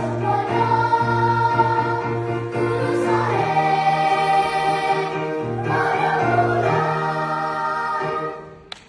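Choir singing held chords in several parts; the singing ends near the end, followed by a single short click.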